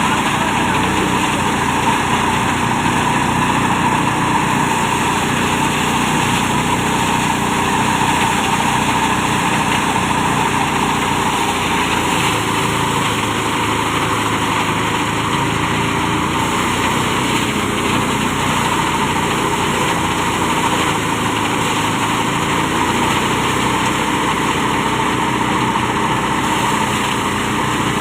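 Engine-driven rice thresher running steadily while threshing paddy, a loud unbroken machine drone.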